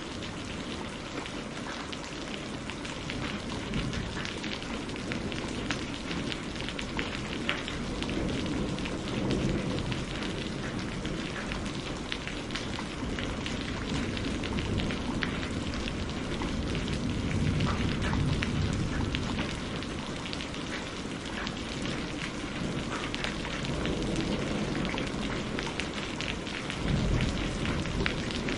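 Steady rain of a thunderstorm with rolling rumbles of thunder, strongest about two-thirds of the way through and again near the end.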